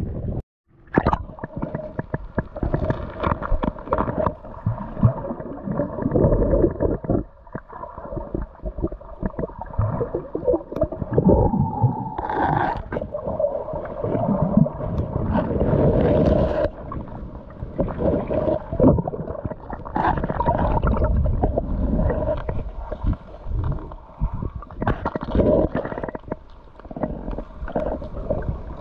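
Muffled underwater sloshing and gurgling, with irregular knocks and scrapes as a hand digs among seagrass on a sandy seabed. The sound drops out briefly just after the start.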